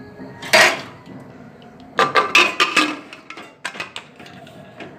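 Pressure cooker lid being fitted onto the metal pot: a loud clank about half a second in, then a cluster of metallic clinks and knocks with brief ringing about two to three seconds in, and a few lighter clicks near four seconds.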